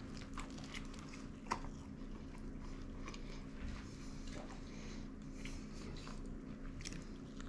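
Close-up chewing and biting of a toasted cheesesteak sandwich, with scattered small clicks and one sharp click about a second and a half in.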